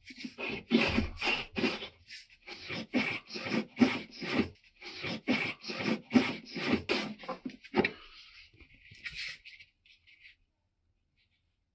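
Wood being filed by hand in regular back-and-forth strokes, about two a second, stopping about eight seconds in, with a few fainter strokes after.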